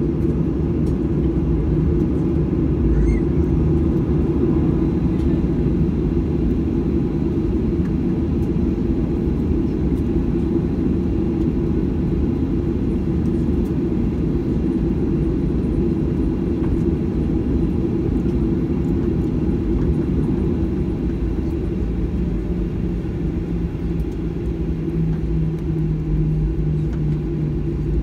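Boeing 737-800 cabin noise while taxiing: a steady low rumble of the CFM56-7B engines at taxi power, heard from inside the cabin at a window seat. A low steady hum comes up over the last few seconds.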